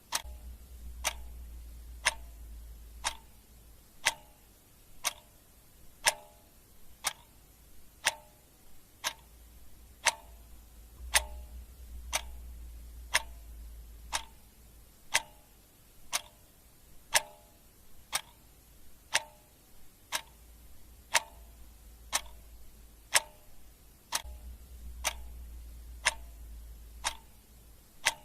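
Clock ticking steadily about once a second, the ticks alternating slightly in tone like a tick-tock. A faint low rumble comes and goes underneath, three times.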